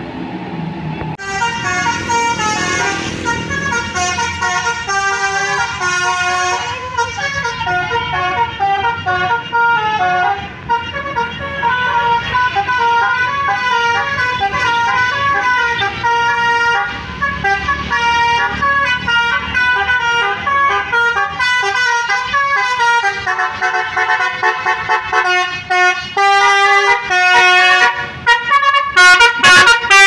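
Tour bus multi-trumpet "basuri" telolet air horns playing a fast melodic tune, note stepping to note, starting about a second in, with engine noise underneath.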